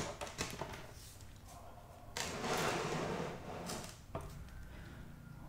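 Quiet movement noise from a person folding forward on a yoga mat: a few light clicks near the start and a single knock about four seconds in. About two seconds in there is a soft rushing hiss lasting about a second and a half.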